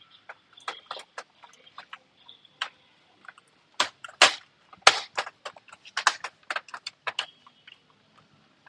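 Irregular sharp clicks and knocks of the laptop's plastic case and parts being handled and closed up, several louder snaps from about the middle on.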